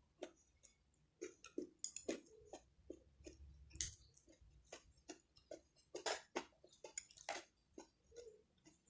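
Eating sounds from a person chewing food close to the microphone: irregular, faint clicks and smacks of the mouth.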